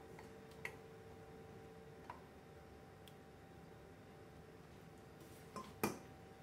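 Quiet kitchen room tone with a steady low hum, broken by a few faint clicks and one sharper knock near the end.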